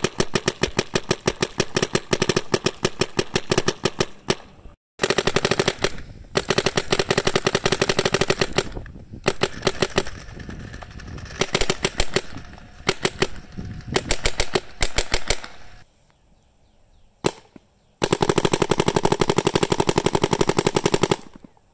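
2002 Warped Sportz Dark Angel LCD electronic paintball marker firing long, rapid strings of shots broken by short pauses. A single shot sounds about three-quarters of the way in, then a last long rapid string.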